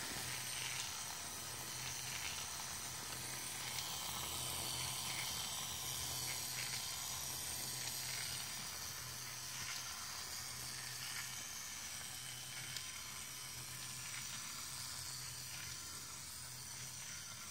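Model single-cylinder engine kit turned over by its small electric motor through a rubber belt: a steady mechanical whir with light, rapid clicking from its gears, toothed timing belt and valve gear.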